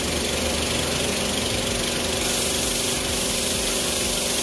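A machine motor running steadily: a constant hum with hiss over it, unchanging throughout.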